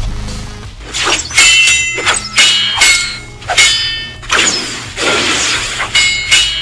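Sword-fight sound effects: a quick series of about seven metal blade clashes, each ringing briefly, with a swish between them about four and a half seconds in.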